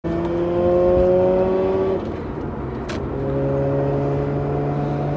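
Bridge-ported Mazda RX-8 twin-rotor rotary engine accelerating, heard from inside the cabin. The pitch climbs, drops at a gear change about two seconds in, then climbs again in the next gear, with a short click just after the shift.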